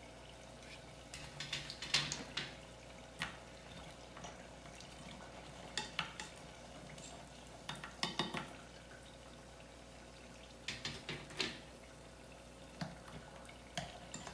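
A wire spider skimmer clinking and scraping against a stainless steel saucepan and a wire rack as fried mini egg rolls are lifted out of the hot oil, in small clusters of light clinks every couple of seconds, over a faint steady sizzle of the frying oil.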